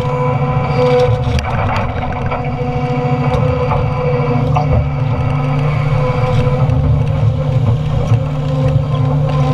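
Doosan Solar 255 LC-V excavator's diesel engine running steadily under hydraulic load as its shear works a timber pile, with a few sharp cracks and knocks of breaking wood about one to two seconds in and again near the middle.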